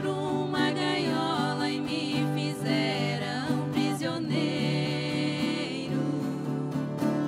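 Brazilian música caipira: a woman singing a slow sertanejo ballad, accompanied by two ten-string violas caipiras picked steadily.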